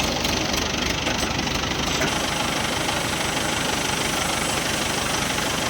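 A heavy engine running steadily at an even speed.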